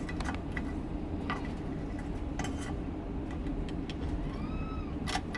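Light metallic clicks and taps of long-reach pliers and small parts inside an outboard gear case, with a brief faint squeak near the end, over a steady low background hum.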